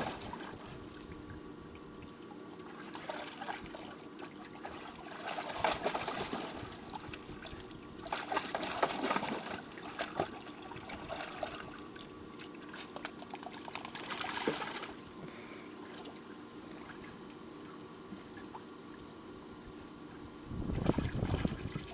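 A dog splashing and sloshing water in a plastic tub with its paws, in bursts a few seconds apart, the loudest near the end. A steady hum runs underneath.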